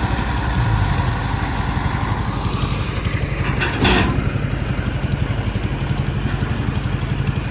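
Diesel engine of a rice-harvesting farm machine running steadily with a fast, even pulse, with a brief louder burst just under four seconds in.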